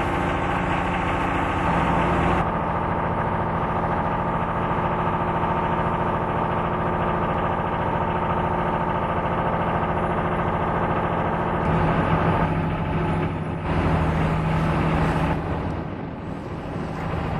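An engine running steadily at a constant speed, with a few abrupt shifts in tone about two and a half, twelve and a half and thirteen and a half seconds in.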